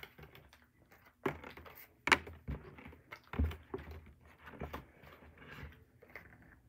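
Handling noise: irregular clicks, taps and soft knocks of things being moved about, the sharpest click about two seconds in.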